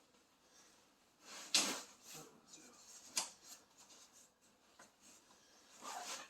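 Scattered handling noises: a few short rustles and clicks, the loudest rustle about a second and a half in and a sharp click a little after three seconds.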